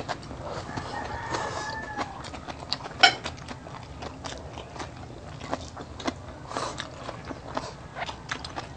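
Close-miked eating sounds: chewing and lip smacks as rice and pork steak are eaten by hand, a scatter of small wet clicks, with a sharper click about three seconds in. A faint drawn-out call sounds in the background about one to two seconds in.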